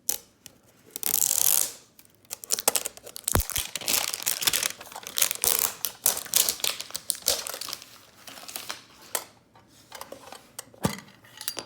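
Plastic wrapping crinkling and tearing as a Pokémon card mini tin is unwrapped and opened, with many small clicks and taps from the handling and one sharp knock about three and a half seconds in.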